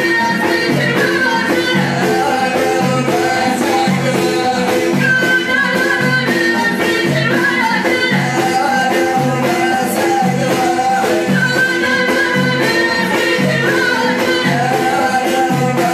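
Live Amazigh ahidous folk music: a violin plays the melody over a steady beat of bendir frame drums, with a male voice singing.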